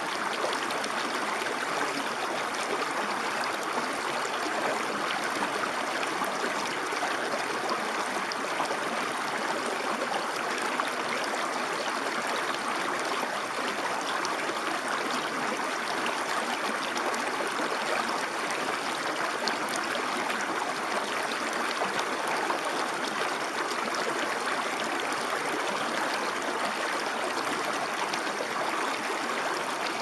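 Small woodland stream pouring over a low rock ledge in a shallow cascade: a steady rush of splashing water with little deep rumble, unchanging throughout.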